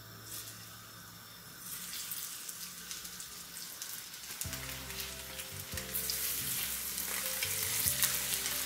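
Battered, breadcrumbed fish fillets sizzling in hot vegetable oil in a frying pan: a crackling sizzle starts as the first fillet goes in, a couple of seconds in, and grows louder when the second fillet is added, about six seconds in.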